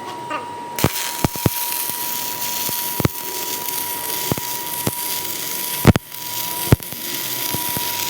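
Metalworking on a broken truck axle: a steady high whine throughout, then an even hiss that starts abruptly about a second in, with crackles and sharp metallic clicks and knocks. The loudest knock comes near the six-second mark.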